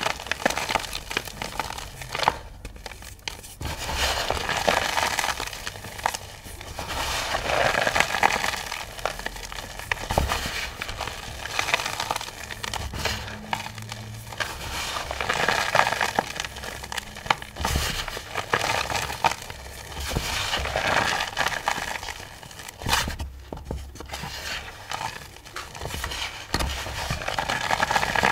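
Crumbly chunks of iron-oxide-tinted chalk powder being crushed, a dense crackling that swells and fades every few seconds.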